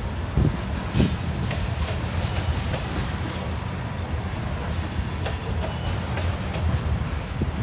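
Freight train of covered hopper cars rolling past: a steady low rumble of steel wheels on rail, with occasional sharper clacks, two of them in the first second.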